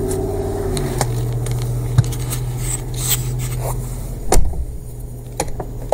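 Car engine idling with a steady low hum, heard from inside the cabin, as a passenger gets into the front seat. Rustling and a few knocks come with it, the loudest sharp knock about four seconds in.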